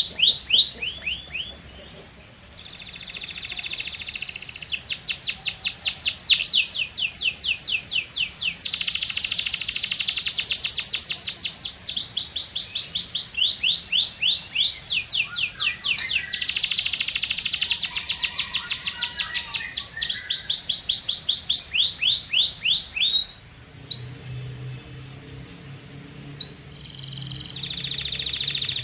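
Domestic canary singing a long song of rapid trills, each a string of quick downward-sweeping notes, switching to a new trill every second or two. The song breaks off briefly a little after the middle, and a faint low hum is heard near the end.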